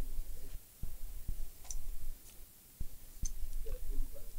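Scattered light clicks and taps, about six over a few seconds, from handling the laptop and tools during the repair, over a low steady hum.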